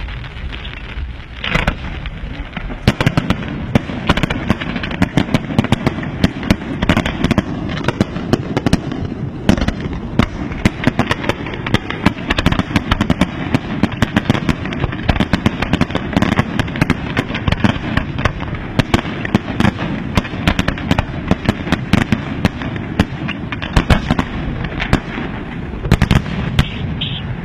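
Professional fireworks display: aerial shells launching and bursting in a dense, continuous barrage. Many sharp bangs and pops a second come over a steady rumble, and the barrage picks up about a second and a half in.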